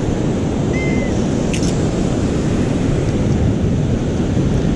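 Strong wind buffeting the microphone over heavy surf, steady throughout, with a short high beep about a second in and a brief click just after.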